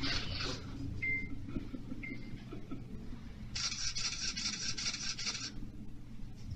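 Nail-art printing machine's built-in camera: two short beeps about a second apart, then a rattling burst of shutter sounds lasting about two seconds as it takes a run of five photos, over a steady low hum.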